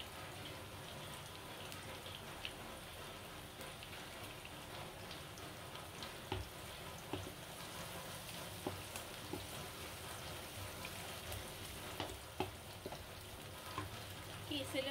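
Sliced onions and chillies sizzling quietly in ghee in a wok, a steady frying hiss. From about six seconds in, a wooden spatula stirs them, with scattered clicks and scrapes against the pan.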